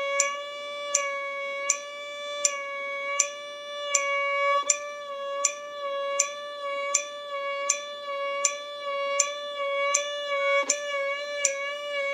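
Violin holding one sustained note as a vibrato exercise, the pitch wavering slightly, with two brief breaks where the bow changes. A metronome clicks steadily under it, about 80 beats a minute.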